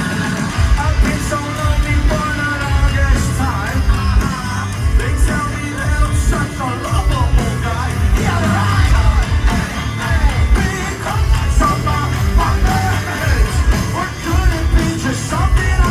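Live heavy rock band playing loud, with pounding drums and bass under a singer's wavering, yelled vocal line.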